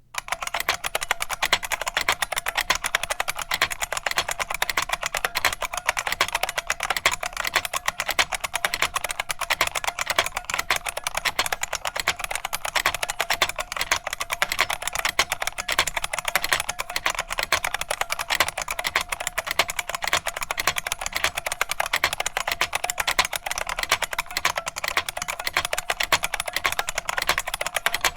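Fast continuous typing on a Unicomp Model M space-saver keyboard (UNI04C6), its buckling springs over membrane switches giving sharp clicks with a metallic spring ping on every keystroke.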